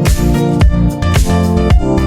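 Electronic background music with a steady, fast beat and bass line.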